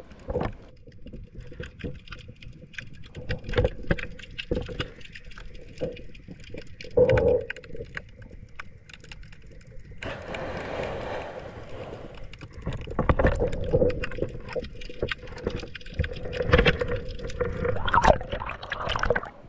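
Underwater sound picked up by a GoPro hanging in the sea: muffled water movement with irregular knocks and thumps, likely the camera housing bumping and swinging on its line, and a faint steady tone underneath. A denser rush of water noise comes about halfway through.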